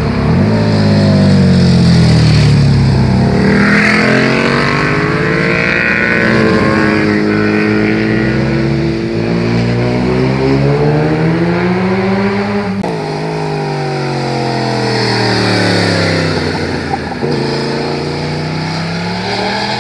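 Sport motorcycles taking a tight hairpin one after another. Each engine's pitch falls as the rider slows into the bend, then climbs steadily as the bike accelerates out. The sound switches abruptly to the next bike about two-thirds of the way in.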